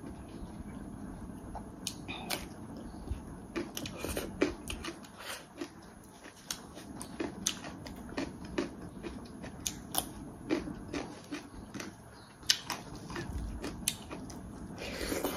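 A person eating and chewing, with irregular smacking clicks from the mouth.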